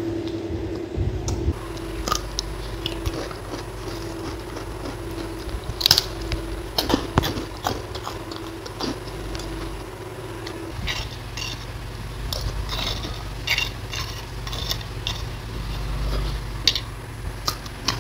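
Close-miked eating: chewing of rice and eggplant sambal, with crisp crunchy bites of fried crackers and raw cucumber, thickest in the second half, over a steady low hum.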